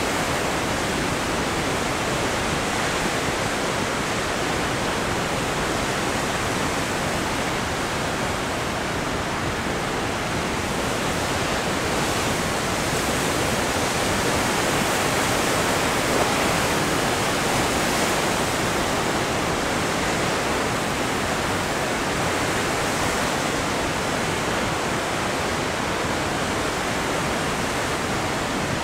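Heavy Pacific Ocean surf breaking and foaming over shoreline rocks: a continuous rush of white water that swells slightly about halfway through.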